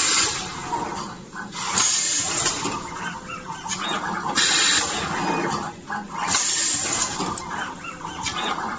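Automatic pneumatic wire terminal crimping and tinning machine cycling: loud bursts of compressed-air hiss about every two seconds, with lighter mechanical clicks in between.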